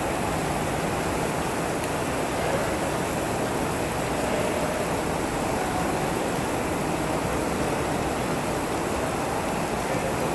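Artificial indoor rain pouring steadily onto the floor, a dense, even hiss with no let-up.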